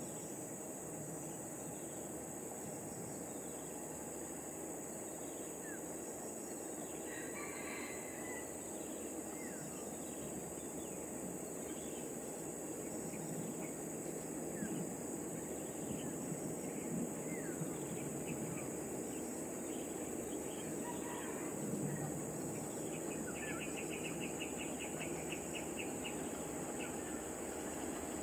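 Steady high-pitched insect drone with scattered short bird chirps, and a rapid trill of ticking notes near the end, over a low steady rumble.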